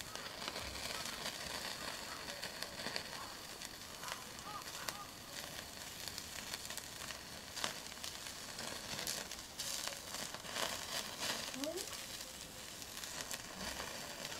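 Duck meat sizzling in its own rendered fat on a hot grill or pan: a steady frying hiss with scattered pops and crackles.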